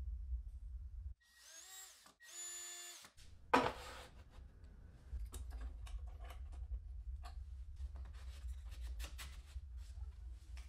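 Workshop handling sounds: wooden pieces and a clamp clicking and knocking over a low machine hum, with squeaky pitched tones about a second in and one sharp knock near the middle.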